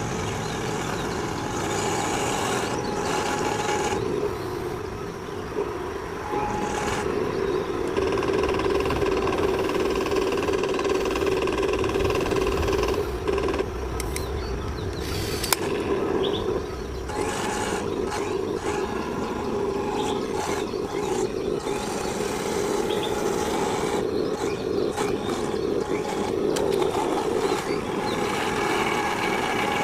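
MATO 1/16 all-metal Tiger I RC tank running, its onboard sound unit playing a steady simulated engine rumble, with a few brief knocks.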